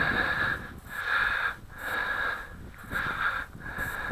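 A person breathing close to the microphone, hissy breaths in a steady rhythm about every 0.7 seconds.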